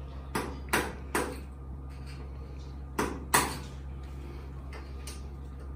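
Sharp knocks from a hand tool at work on a bathroom floor drain and its fittings: three in quick succession near the start, two more about three seconds in.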